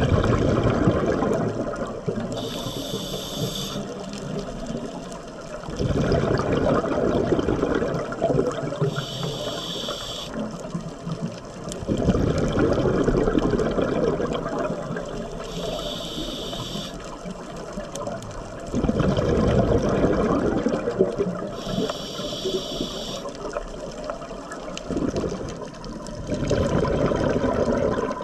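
Scuba diver breathing through a regulator underwater: a short hiss on each inhale, then a few seconds later a loud rush of exhaled bubbles that fades away, repeating about every six to seven seconds.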